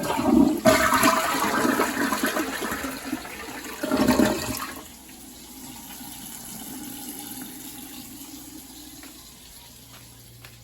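Toilet flushing: a loud rushing swirl for about five seconds, then a quieter steady hiss of the tank refilling that slowly fades.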